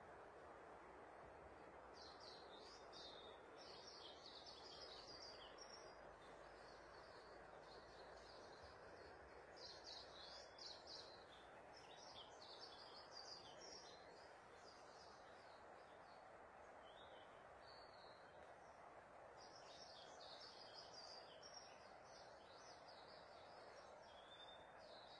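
Faint birds chirping in repeated short phrases over a steady low background hiss.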